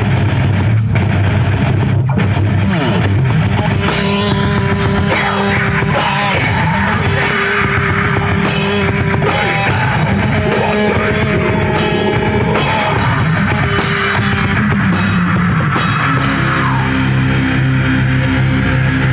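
Live heavy metal band playing loud, with electric guitars and a drum kit. Held and bending guitar notes ride over the band through the middle, and it settles into long sustained lower chords near the end.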